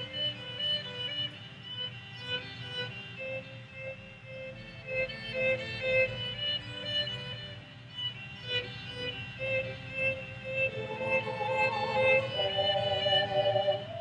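Solo violin playing short, rapidly repeating note figures in a minimalist pattern.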